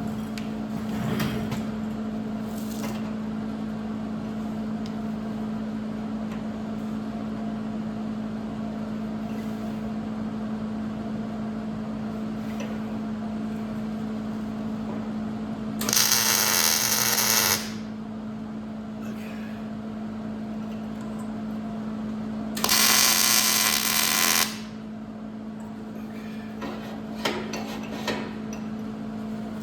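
Power tool working steel: a steady motor hum, broken twice by loud, harsh bursts of about two seconds each, a little past halfway and about two-thirds of the way in.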